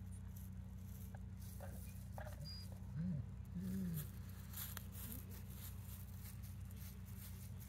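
An animal gives two short, low calls in quick succession about three seconds in, over a steady low hum.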